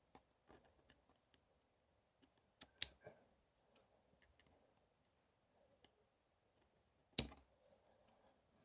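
Scissors snipping cotton wick for a rebuildable tank atomizer: a few sharp clicks, two close together about three seconds in and a louder one near the end, with faint small ticks between.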